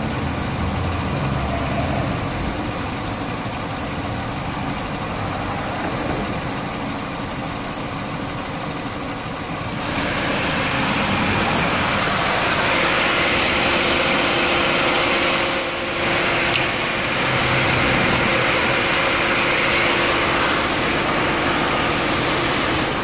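1998 Honda Accord engine idling with the A/C running. About ten seconds in, a steady rush of air joins it and the sound gets louder: the electric cooling fan switching on.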